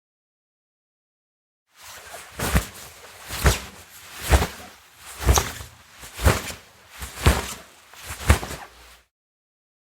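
Cloth whooshes: a piece of fabric swung through the air about once a second, seven times in a row, each swish ending in a sharp flap. They begin about two seconds in and stop about a second before the end.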